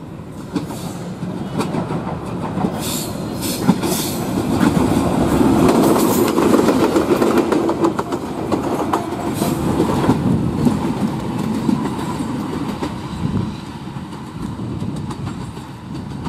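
Bangladesh Railway diesel locomotive no. 2401 running light past at close range: engine rumble with wheels clicking over rail joints. It grows louder to a peak about six seconds in, then fades as it moves away.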